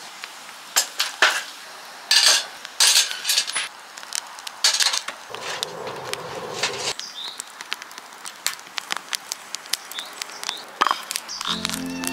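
Scattered metal clinks and knocks of a mess tin's lid being pressed on and the tin set on the grill rack of a Picogrill fire pit over a wood fire, with firewood being pushed in. Music comes in near the end.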